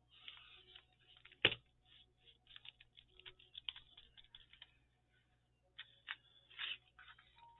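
Paper and craft pieces being handled on a table: light irregular crackling and tapping, with one sharp knock about a second and a half in.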